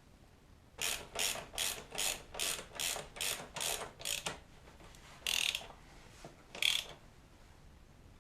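Ratchet wrench being worked in quick back-and-forth strokes, about three a second for several seconds, then two slower single strokes.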